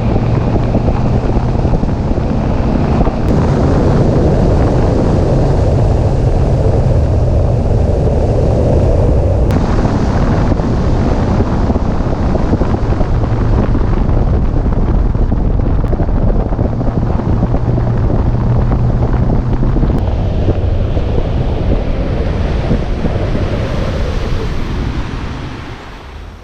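Wind rushing over the microphone above the steady drone of a boat's motor running under way. It fades out near the end.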